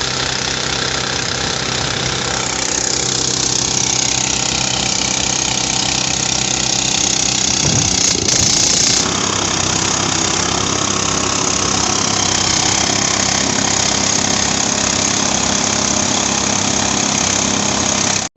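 Motorized rice threshing machine running steadily: an even engine drone under a dense rushing noise, with a brief louder surge about halfway through.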